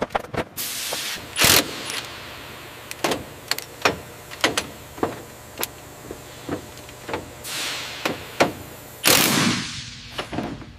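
Workshop teardown sounds: a steady run of sharp clicks and knocks from tools and metal parts being handled, with a loud clank about a second and a half in. Short bursts of hiss come in near the start, near the middle and again near the end.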